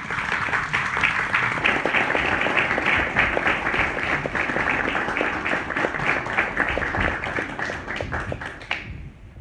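Audience applauding, many hands clapping at once, dying away about nine seconds in.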